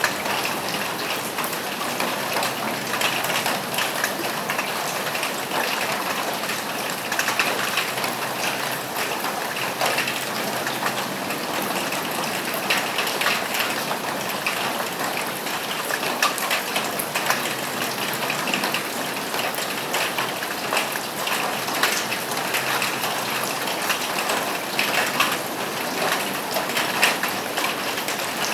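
Steady rain falling on a roof, a dense unbroken hiss made of countless small drop hits.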